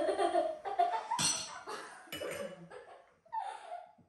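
Family laughing and chatting at a table, with a few sharp clinks of tea glasses and plates. The sound dies away near the end.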